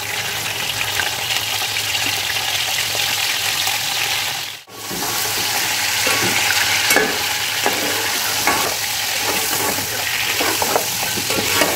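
Khagga fish pieces sizzling in hot oil with ginger-garlic paste in a metal pot: a steady frying hiss that cuts out for a moment a little before the middle. In the second half a slotted steel spoon stirs the fish, scraping against the pot.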